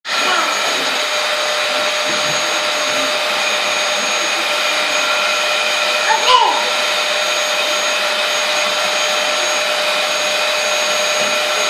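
Bagless canister vacuum cleaner running steadily, a constant motor whine over rushing air. About six seconds in, a baby gives a short falling vocal sound.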